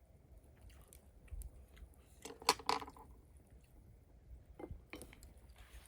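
A person eating close to the microphone: soft chewing with scattered small clicks, and a louder wet burst of eating sound about two and a half seconds in.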